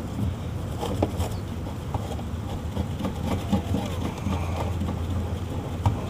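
Steady low machine hum, with small clicks and rattles from the yellow refrigerant charging hose's fitting being screwed on by hand, the sharpest click just before the end.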